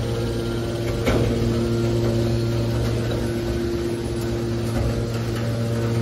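Hydraulic metal baler's power unit running with a steady hum, with a single sharp knock about a second in.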